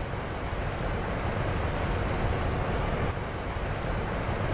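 Steady rushing of river water, an even, unbroken noise with a deep rumble underneath.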